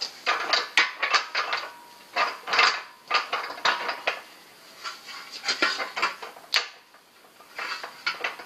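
Metal parts of an English wheel being handled and adjusted around its lower anvil, clinking and clattering in several short bursts with a faint metallic ring.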